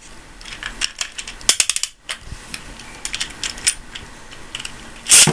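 Plastic Beyblade ripcord ratcheting through a dual launcher in bursts of rapid clicks. Near the end comes a short loud rip as the cord is pulled, launching two tops into a plastic stadium.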